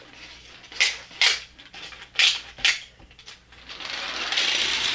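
Sharp metallic clicks and clinks of small diecast pull-back toy cars being handled, a handful in the first three seconds. From about three and a half seconds in, a hiss swells up and holds.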